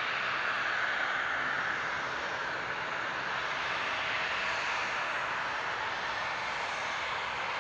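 Boeing 747-400F freighter on final approach, its four jet engines running with a steady rushing whine, gear down, passing toward the listener and growing a little louder near the end.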